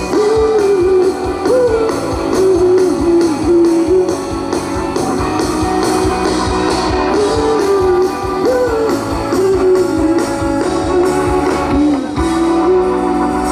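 Live band playing an instrumental passage: a guitar carries a bending melody over a steady drum beat.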